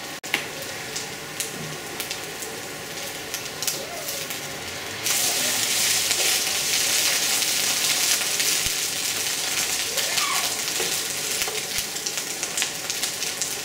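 Varai dosa batter sizzling in a nonstick pan, a steady frying hiss with faint crackles. About five seconds in, the sizzle turns suddenly louder and brighter as the dosa crisps.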